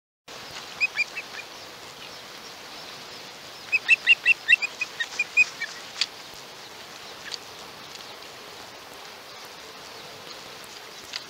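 Osprey calling: a few short, high whistled chirps about half a second in, then a rapid run of about a dozen chirps around four seconds in, over a steady background hiss. A single sharp click comes near six seconds.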